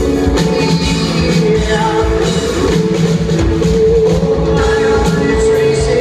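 Rock band playing live: distorted electric guitars and drum kit, with a singer's voice over a steady held note.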